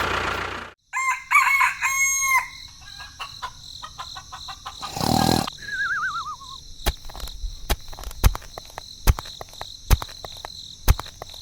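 Loud music cuts off in the first second, then a rooster crows. A short wavering whistle follows, and then sharp clicks come about once a second.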